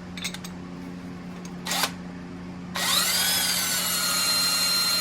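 A cordless power drill's motor spins up with a short rise in pitch, then runs at a steady high whine for about two and a half seconds. A brief scraping rasp comes just before it.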